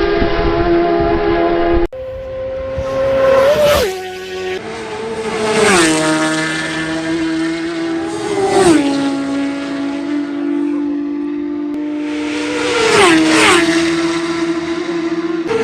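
Racing motorcycles passing at high speed one after another, about four times, each engine note swelling loud and then dropping sharply in pitch as the bike goes by.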